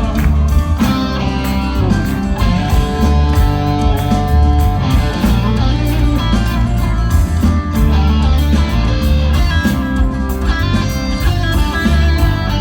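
Live progressive rock band playing an instrumental passage, electric guitar to the fore over a steady bass line.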